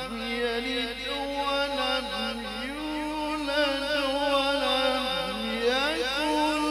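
A man's voice chanting the Quran in the melodic tilawah style, holding long ornamented notes. About five seconds in it dips low, then slides up to a higher held note.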